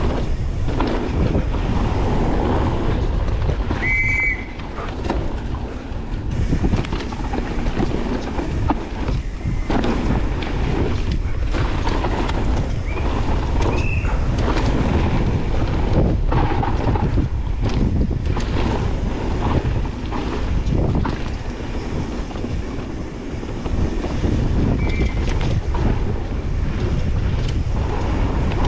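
Mountain bike running fast down a rough downhill trail: constant rattling and knocking of the bike over bumps and roots, with wind blowing on the microphone and a few brief high squeaks.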